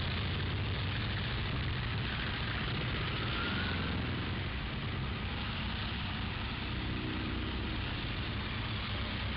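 Several motorcycles riding in a group, their engines a steady low hum under a constant rush of wind and road noise.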